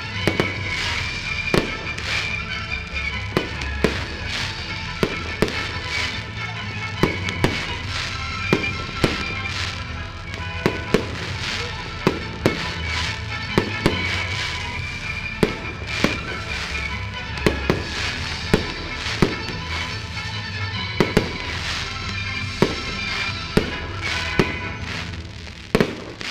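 Fireworks shells bursting in a steady run of sharp bangs, about one to two a second, over music that plays throughout and stops near the end.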